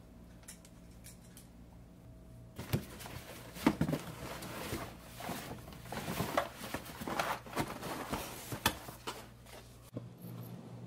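Hands rummaging in a cardboard box of fabric straps: irregular rustling, scraping and knocking that begins about a quarter of the way in, over a faint steady hum.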